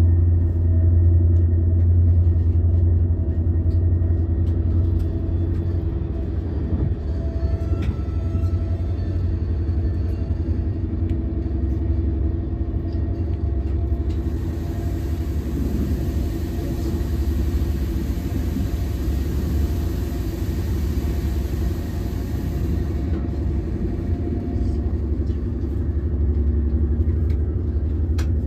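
Steady low rumble of a passenger train carriage running along the rails, with a steady hum over it. A hiss comes in for about nine seconds in the middle, and a few faint clicks sound now and then.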